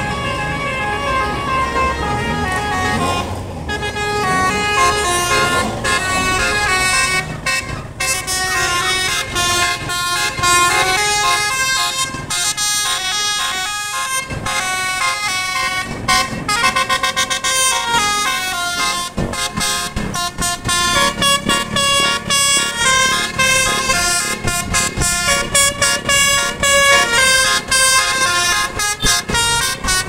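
A bus's telolet musical air horn plays a fast, continuous melody of stepped notes, with motorcycle engines running underneath.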